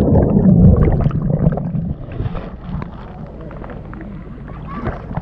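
Sea water churning and bubbling around a submerged microphone: a loud rush of bubbles for the first second or two, then muffled gurgling and lapping as the microphone bobs at the waterline.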